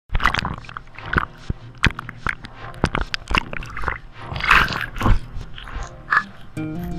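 Waves slapping and splashing against a waterproof camera housing at the water's surface: irregular sharp knocks and crunchy splashes. Background music starts near the end.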